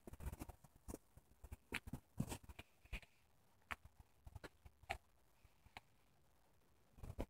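Faint, scattered clicks and taps from someone walking across a yard holding a phone: footsteps and handling of the phone, with quiet stretches between.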